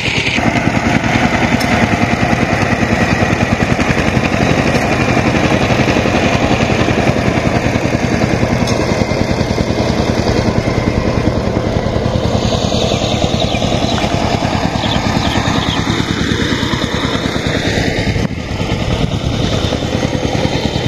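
Engine running steadily at a constant speed, with a fast, even chugging pulse.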